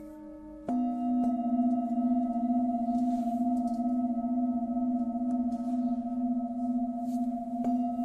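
Tibetan singing bowls ringing. A bowl is struck about a second in, and its low, steady hum rings on with a slow wavering pulse. A lighter strike comes near the end.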